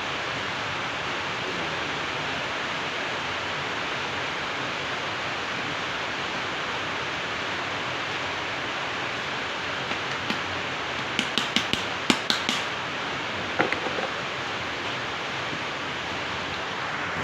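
A steady hiss, with a quick run of sharp clicks about eleven to thirteen seconds in.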